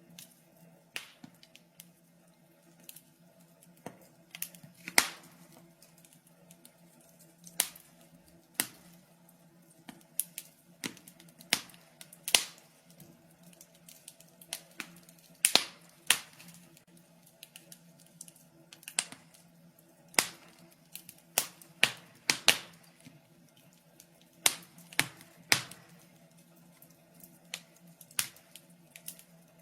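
Wood fire crackling in a fireplace: irregular sharp pops and snaps, several loud ones, over a faint steady low hum.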